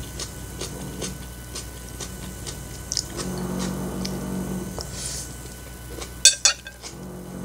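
Close-miked eating of fried instant noodles: wet chewing clicks and light fork sounds, then noodles slurped in from a fork with two loud sharp smacks about six seconds in.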